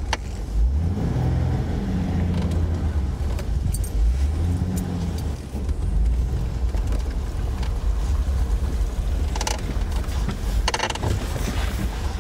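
Vehicle engine and tyre rumble while creeping along a rough dirt trail, the engine note rising briefly twice. Two short clatters of rattling come near the end.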